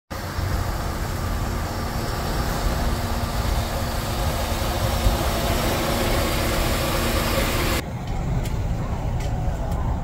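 Road traffic: a steady hiss over a low engine rumble with a faint steady hum, which cuts off suddenly near the end to quieter street traffic with a low rumble and a few sharp clicks.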